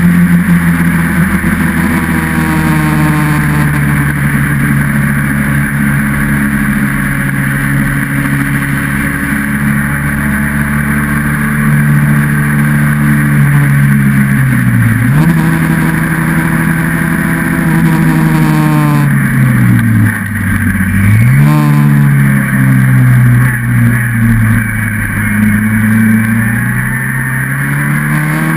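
Austin Seven side-valve four-cylinder engine of a single-seater racing special running hard on track. Its pitch sags slowly, drops sharply and recovers twice (about halfway through, then again about two-thirds through), and rises near the end. A steady rush of wind runs underneath.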